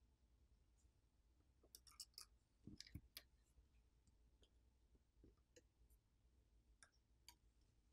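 Near silence, with a few faint small clicks and taps, mostly bunched between about two and three seconds in.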